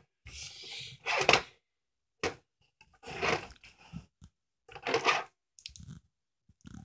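Several short knocks and rustles of plastic wrestling action figures being handled and knocked against a toy wrestling ring's mat, with pauses between them.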